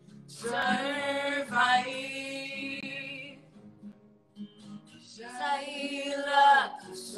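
A man and a woman singing a slow song together over acoustic guitar: two long sung phrases with a short quieter pause between them.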